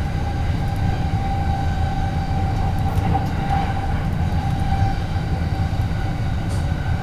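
Steady low rumble of a running train, with a faint steady whine above it.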